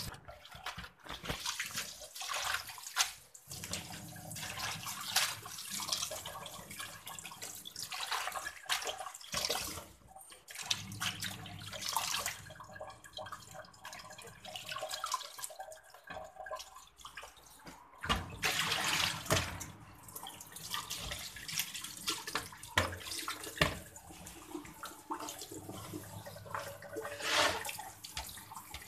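Tap water running into a stainless steel sink while hands swish and rub cucumber leaves in a bowl of water, with irregular splashing and sloshing.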